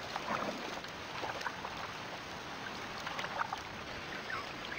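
Water lapping and splashing steadily in a shallow river, with a few faint short high calls scattered through it.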